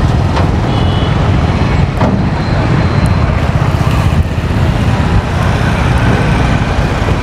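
Steady engine and road-traffic rumble from vehicles close by, with a few short knocks.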